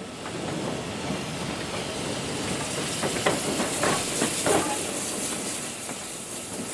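Austerity 0-6-0ST saddle-tank steam locomotive moving off with a strong, steady hiss of escaping steam. A few louder chuffs or clanks come about halfway through.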